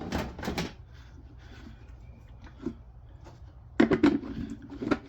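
Handling noises of hands working a diesel heater's fuel line off its pump: a few short clicks and knocks in the first second, then the loudest cluster of knocks about four seconds in.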